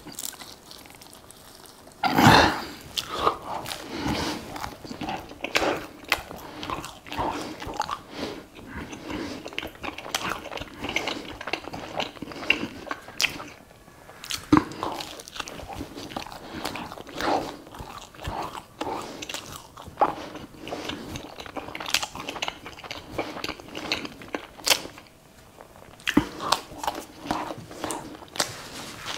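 Close-miked eating of pizza with minced meat: irregular bites, crunches and chewing mouth sounds, the loudest crunch about two seconds in.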